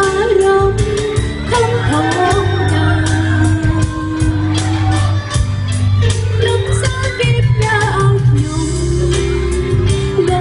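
A man singing in a high, female-sounding voice, with held, wavering notes over backing music with a strong bass and a steady beat.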